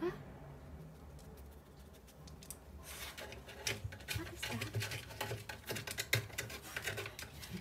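A wirehaired terrier scratching and scrabbling at the wooden floor and the gap under a wooden cabinet. Rapid, irregular scraping with dull thumps starts about three seconds in.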